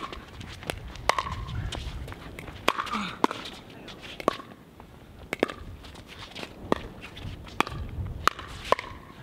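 Pickleball rally: the ball popping sharply off hard paddles and bouncing on the court, about a dozen crisp pops roughly a second apart.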